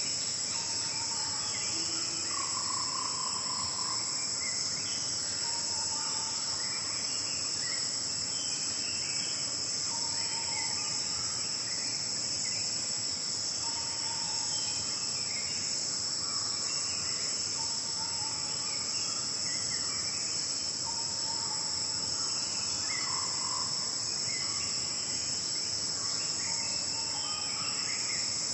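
Steady, high-pitched insect chorus that runs without a break, with short bird calls lower in pitch scattered through it every couple of seconds.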